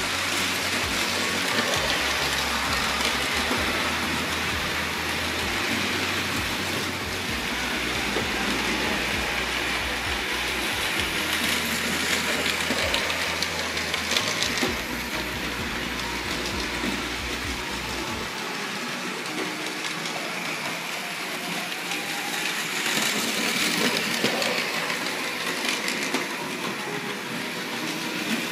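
Several Märklin HO model trains running around the layout's metal track: a steady rattle of small wheels and motors. A low hum underneath cuts out about two-thirds of the way through.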